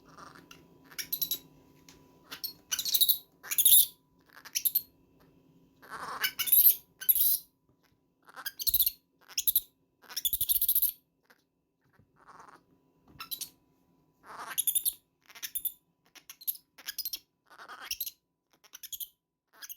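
Baby monkey screaming in a long run of short, shrill squeals, one after another with brief gaps, the loudest about three and six seconds in.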